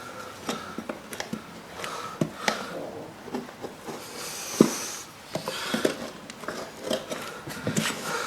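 Irregular clicks and knocks of tyre levers and hands working a tyre onto a motocross wheel rim, the loudest knock about halfway through.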